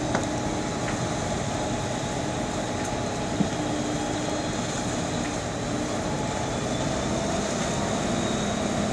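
Steady rumble and rush around a semi truck burning fully in flames, with a constant engine-like hum running under it and no distinct events.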